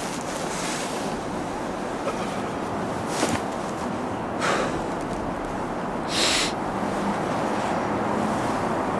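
Steady outdoor background noise with about four short hissing rustles or breaths, while a man settles onto a playground swing in a winter coat.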